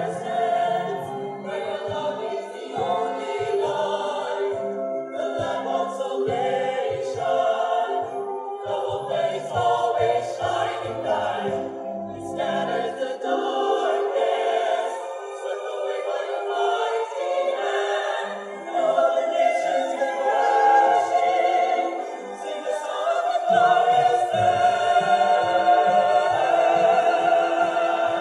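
Small mixed choir of women's and men's voices singing in harmony through microphones. The low voices drop out for several seconds in the middle, and the singing grows louder near the end.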